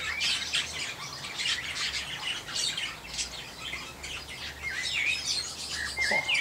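Birds chirping: a busy run of short, high chirps and tweets, with a few dipping, rising-and-falling calls in the second half.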